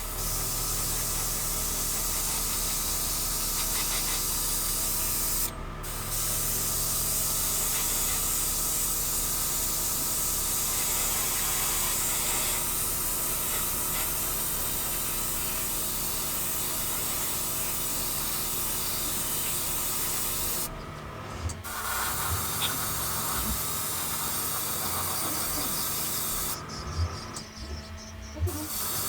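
Airbrush spraying paint in long, steady hissing passes that stop briefly a few times, with a faint steady hum underneath.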